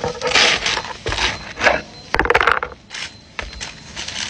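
Crusty fresh-baked bread loaf crackling and crunching as it is split open by hand, in several short bursts, the loudest crunch about two seconds in.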